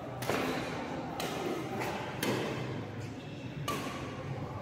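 Badminton rackets striking a shuttlecock in a rally: about four sharp hits, roughly a second apart, each echoing in the hall.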